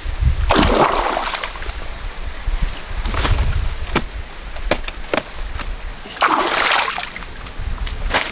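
Water splashing and sloshing twice in a shallow stream as a person moves through it, with the stream running and a few short sharp clicks and knocks between the splashes.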